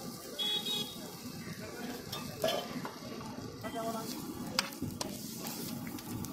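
Chole kulcha frying with a steady sizzle on a flat metal griddle (tawa), with scrapes and clinks as a metal spatula and a pizza-cutter wheel work against the griddle surface.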